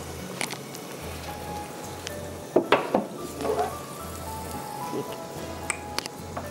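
Food frying in oil in a lidded frying pan: a steady sizzling hiss, with a few sharp knocks and clicks, the loudest about two and a half seconds in.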